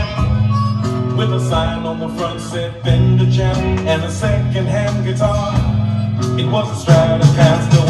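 Background music with a steady beat over a low bass line.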